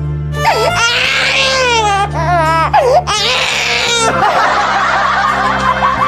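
Background music with a steady low accompaniment, over which a high-pitched cartoon voice wails with a wavering, sliding pitch from about half a second in to about four seconds in, followed by a softer fluttering sound.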